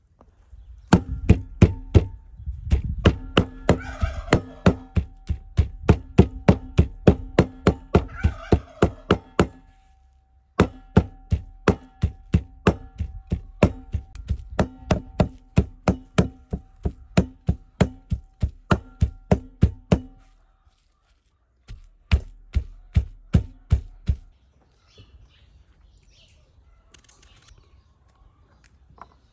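Cleaver chopping raw meat on a thick wooden log chopping block: steady, sharp knocks about three or four a second, with two short pauses. The chopping stops a few seconds before the end.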